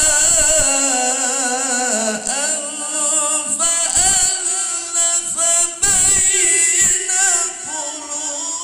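A man reciting the Qur'an in the melodious tilawah style through a microphone and loudspeakers: long, ornamented sung phrases with wavering, gliding pitch, broken by short pauses.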